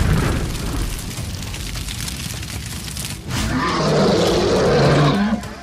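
Cartoon explosion sound effect: a boom at the start that rumbles away over about three seconds. About three seconds in, it is followed by a growling monster roar with a low pitched tone.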